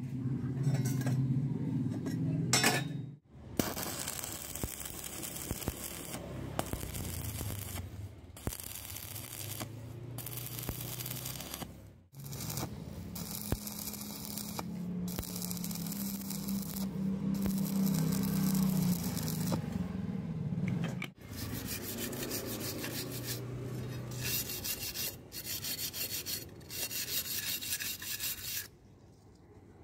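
Stick (arc) welding on steel angle iron: the electrode's arc crackles steadily in long runs with a low hum under parts of it, breaking off and restarting a few times. Near the end, a steel wire brush scrubs slag off the weld in quick, rough strokes.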